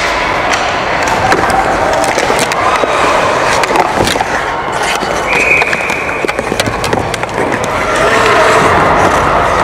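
Ice hockey play: skate blades scraping the ice and sticks clacking against the puck and each other, with players' shouts mixed in. A short, steady high tone sounds about five seconds in.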